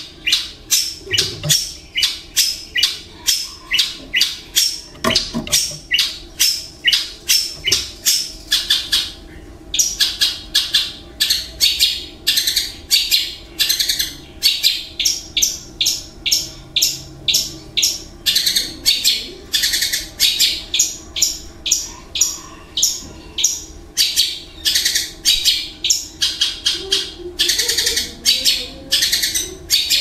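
Long-tailed shrike (cendet) singing a long, rapid run of short, harsh, high notes, about three a second, with a brief pause about ten seconds in.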